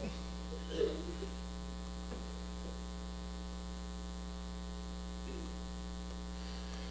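Steady electrical mains hum, with a brief faint murmur about a second in.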